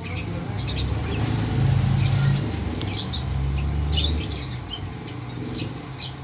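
Lovebirds chirping in short, high, scattered bursts, over a low rumble that swells from about a second in and fades near the middle.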